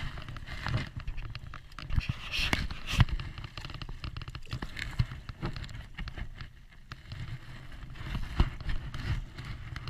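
A hooked brown trout splashing at the surface of shallow creek water as it is brought to hand, with wind rumbling on the microphone and irregular knocks of handling noise, the loudest about three seconds in and again near the end.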